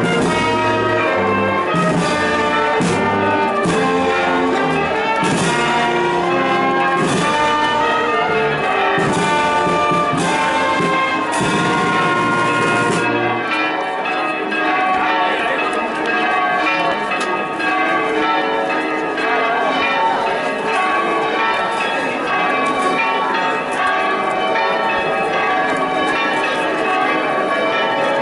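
A wind band playing a processional march with brass and regular drum beats, which stops about halfway through; church bells then ring in a continuous peal.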